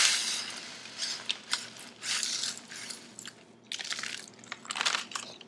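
Dry bran cereal being poured into an electric coffee grinder's bowl, a rustling, crackling pour that is loudest at the start and then comes in short scattered bursts as the last flakes go in.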